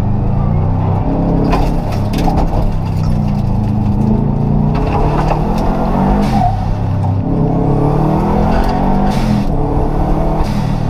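Rally car engine heard from inside the stripped cabin, driven hard: the revs climb and drop several times through gear changes, with a few short sharp cracks in between.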